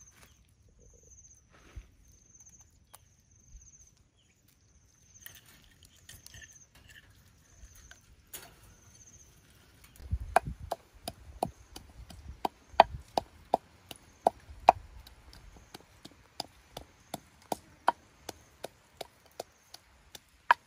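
Wooden pestle pounding in a clay mortar, sharp regular knocks about two to three a second, each with a short ringing tone, starting about halfway through. Before that it is nearly quiet, with faint high chirps repeating.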